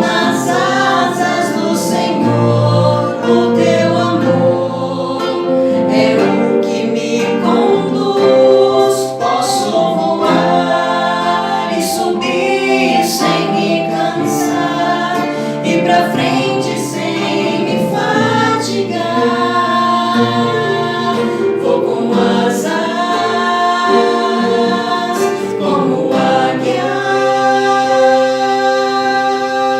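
A vocal group singing a Catholic worship song in harmony, with musical accompaniment.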